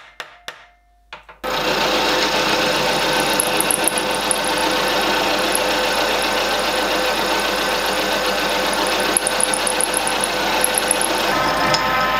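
A few light hammer taps seating a workpiece in a milling-machine vise. About a second and a half in, the milling machine starts up suddenly and runs loudly and steadily, its end mill cutting a small steel frame rod. Near the end the sound changes and takes on a few steady tones.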